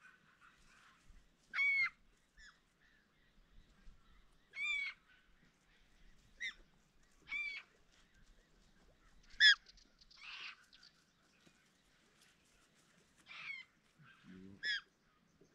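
A crow calling: about nine short, harsh caws at irregular intervals, the loudest about halfway through.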